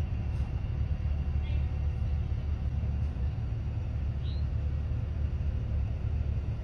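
Steady low rumble of an idling car, heard from inside its cabin, with two faint short squeaks about a second and a half in and again past four seconds.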